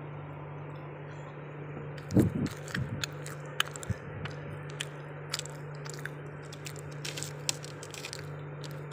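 Eating a soft chocolate cake slice: a bite about two seconds in, then scattered short wet clicks of chewing and lip smacking, over a steady low hum.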